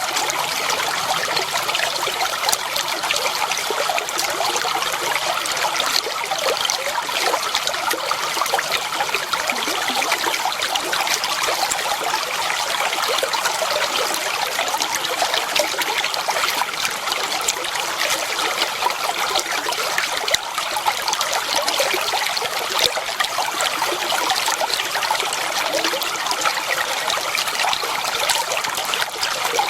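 Clear water flowing and trickling steadily over stones in a stream, an even splashing babble with many small bright droplet sounds.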